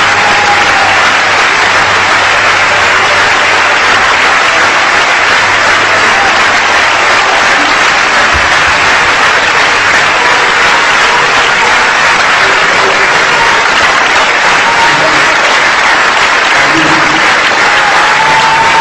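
Concert hall audience applauding steadily in a long, sustained ovation.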